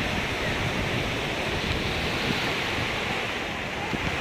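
Sea surf washing steadily onto the beach, a continuous even rush of waves, with some wind on the microphone.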